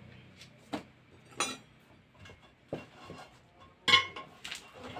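A handful of sharp metallic clinks and knocks at uneven gaps, the loudest about four seconds in: a tyre being worked by hand onto a motorcycle's steel wheel rim, with metal on metal.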